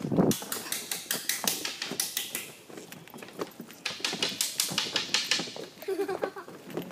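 Footsteps of several people on wooden boardwalk planks: a rapid, irregular run of sharp clacks and knocks.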